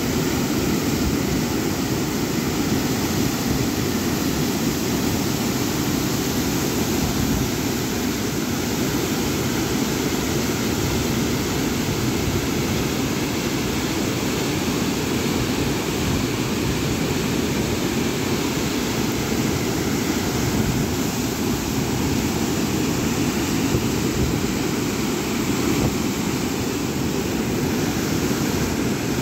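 Water pouring through an opened dam spillway gate and crashing into the river below: a steady, heavy rush with no pauses.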